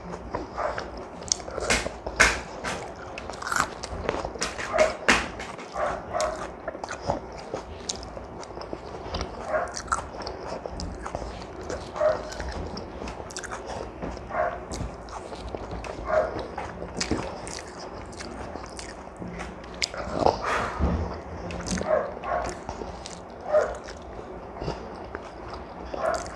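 Close-up eating sounds: wet chewing and lip smacks every second or two, with clicks from fingers scraping food off a plate.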